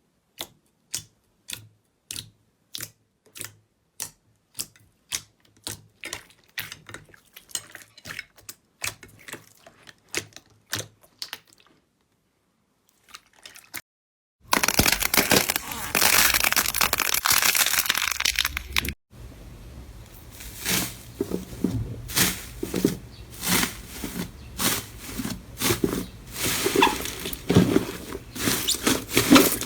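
Slime being handled: a run of sharp clicks about two a second that grow quicker and fainter, a short pause, then dense crackling and crunching that thins to scattered crisp crackles.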